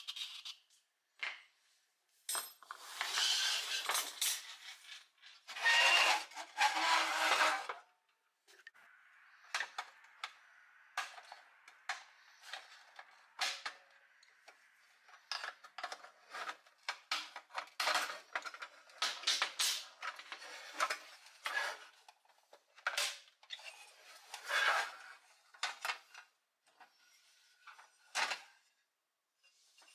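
Metal clinks, taps and scrapes from taking apart a pressed-steel Tonka toy truck by hand: a steel pin punch and axle working against a wheel, and the metal grille being pried off the cab. Two spells of scraping come a few seconds in, and scattered light clicks and clinks follow.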